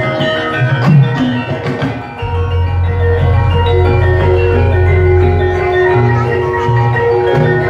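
Javanese gamelan playing: bronze metallophones and kettle gongs ring out a steady mallet-struck melody. About two seconds in, a large hanging gong is struck and rings low for about three seconds.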